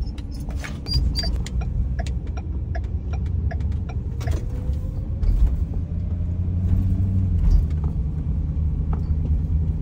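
Van driving on a road: steady engine and road rumble, with a run of light clicks through the first half and a faint rising whine in the middle.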